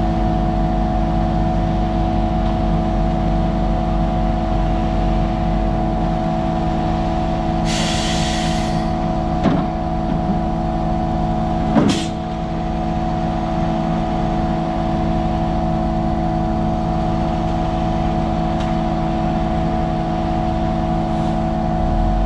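Heavy diesel truck engines running steadily as a ready-mix concrete truck pulls up to a concrete boom pump truck. A short hiss of air comes about eight seconds in, and a single sharp clank about twelve seconds in.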